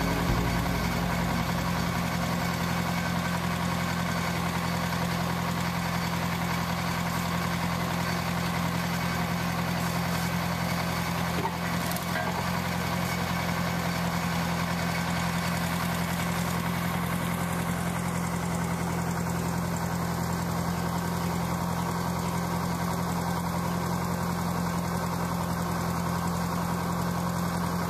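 Engine driving an old geared marine-railway cable winch, idling steadily at an even pitch.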